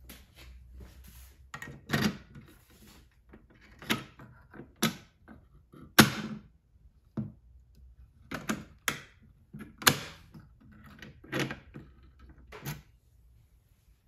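Fire-Lite by Honeywell dual-action manual fire alarm pull station being reset by hand: a series of sharp plastic clicks and clacks from its cover and handle, the loudest about six seconds in.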